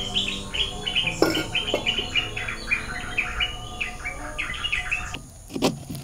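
A bird chirping in a rapid run of short, high notes that stops about five seconds in. A single sharp knock comes about a second in.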